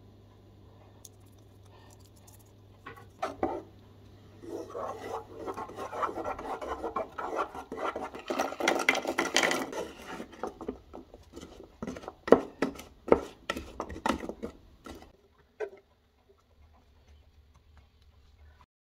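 Wooden spatula stirring walnut pieces in a metal saucepan: a dense scraping and rattling, followed by several separate sharp knocks, then it goes quiet.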